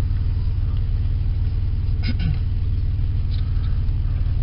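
Car engine idling, heard from inside the cabin as a steady low hum, with a couple of faint clicks about two seconds in.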